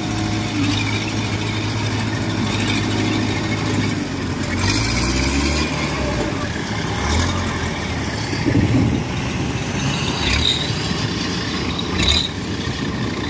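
Diesel engines of Kubota DC-70 tracked rice combine harvesters running as the machines drive across the field, the engine pitch shifting about four to six seconds in, with a few sharp clanks.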